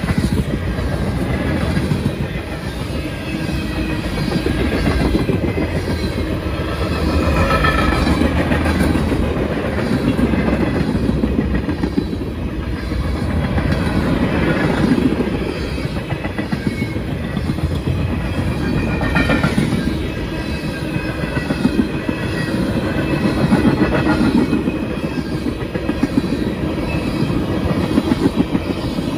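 Freight cars of a long manifest train rolling past, their steel wheels clattering on the rails in a repeating clickety-clack over a steady rumble. Brief faint high squeals come from the wheels a couple of times.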